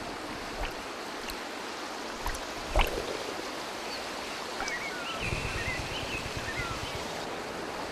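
Steady rush of shallow river water, with one sharp splash about a third of the way in as a common kingfisher plunges in after a fish. A few short, thin, high bird calls follow just past the middle.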